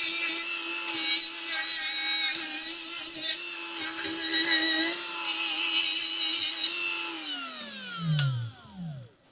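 Small electric buffer running at a steady high whine while buffing welded steel, with a scratchy hiss of the wheel on the metal that comes and goes. About seven seconds in it is switched off, and its whine falls away in pitch over a couple of seconds.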